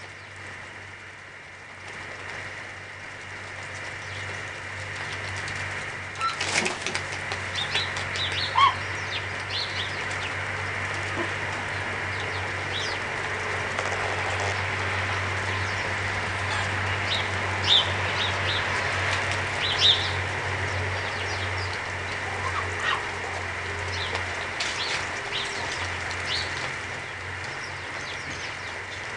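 Geese pecking at feed on brick paving: scattered short clicks and taps of bills striking the brick, a few of them louder, over a steady background hiss and low hum.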